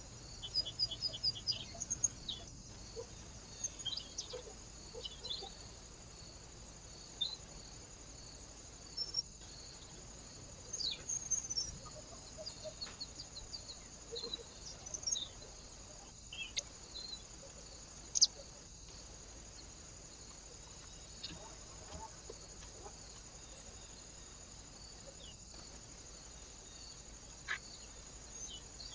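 Small wild birds chirping and calling at a bird feeder: short high calls scattered throughout, busiest in the first half, with one sharper call a little past the middle, over the steady hiss of a trail camera's microphone.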